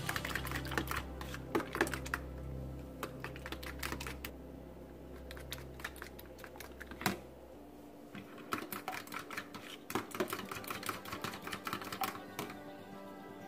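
A fork whisking beaten eggs with milk and shredded cheese in a bowl: rapid clicking and tapping of the fork against the bowl's side. The clicks thin out for a couple of seconds midway, then pick up again. A steady low hum runs underneath until it stops about eight seconds in.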